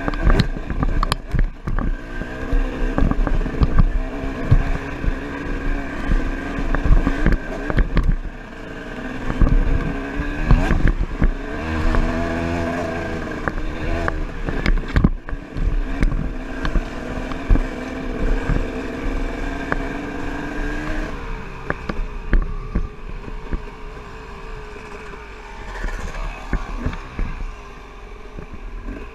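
Dirt bike engine under way on a rough trail, its note rising and falling with the throttle, with frequent knocks and rattles from the bike jolting over rocks. The engine eases off about two-thirds of the way through and runs quieter after that.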